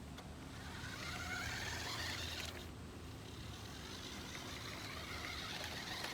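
Electric drive motor and gears of a New Bright R/C Polaris RZR toy truck whining as it is driven, the pitch rising and falling with the throttle twice.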